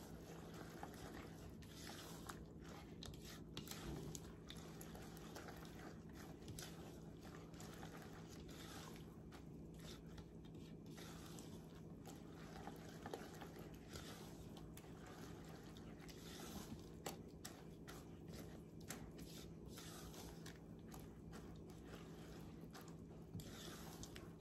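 Faint, soft squelching and scraping of a spatula stirring a thick wet oat batter in a plastic mixing bowl, in short irregular strokes. A low steady hum runs underneath.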